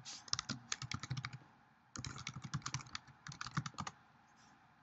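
Typing on a computer keyboard: two quick runs of keystrokes with a short pause between them, stopping about four seconds in.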